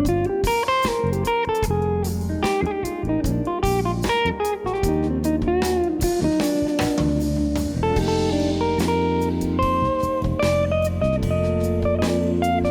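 Background music: a guitar-led instrumental with bass and a light drum kit.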